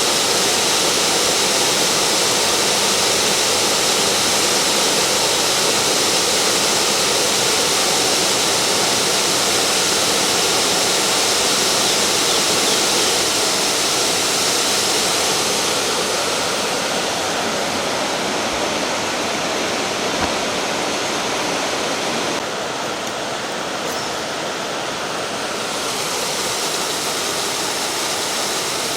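Steady rushing of river water over rocks, a constant loud wash with no breaks, that drops a little in level and loses some of its hiss about 22 seconds in.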